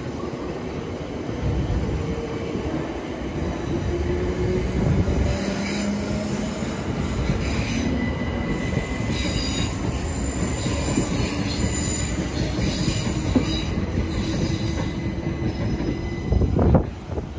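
Southern Class 377 Electrostar electric train rolling past on curved track, wheels rumbling on the rails with on-and-off high-pitched wheel squeal. A brief louder burst near the end.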